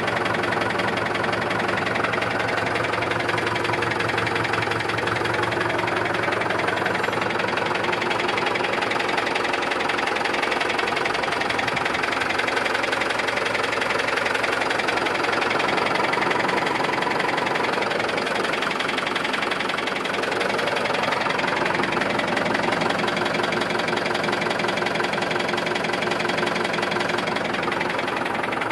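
1977 SAME Saturno 80 4WD tractor's air-cooled four-cylinder diesel engine idling steadily, heard close up.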